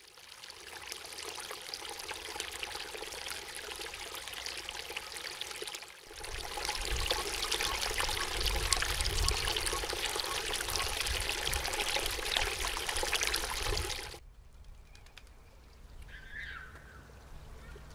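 A small stream of water pours over a concrete ledge into a shallow pool with a steady splashing trickle. After about six seconds the water gets louder and fuller. After about fourteen seconds it drops much quieter, with one short chirp near the end.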